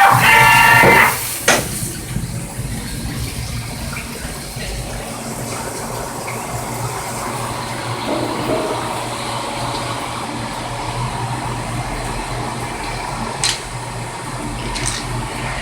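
CNC machining centre running with coolant flowing, a steady rush of liquid over a low machine hum. A short pitched tone stops about a second in, followed by a single click.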